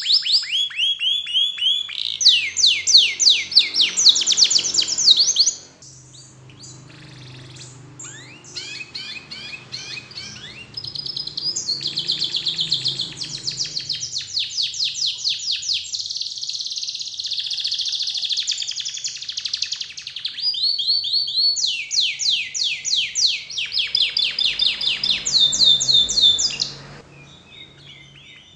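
Domestic canary singing: long phrases of fast trills, each a run of quickly repeated down-slurred notes, changing from one trill to the next. The song goes quieter for a few seconds about six seconds in and stops just before the end.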